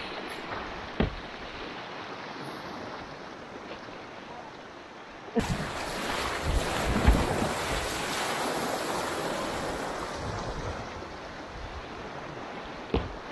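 River water rushing and splashing around a kayak, turning suddenly louder and brighter about five seconds in, then easing off a few seconds later. Single sharp knocks about a second in and again near the end.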